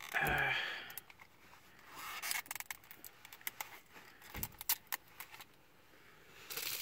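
Fingers and fingernails picking and scratching at the plastic shrink-wrap and sticker on a CD case: scattered clicks and taps with short crinkling, scraping bursts, the loudest right at the start and another about two seconds in, plus a soft thump a little past four seconds.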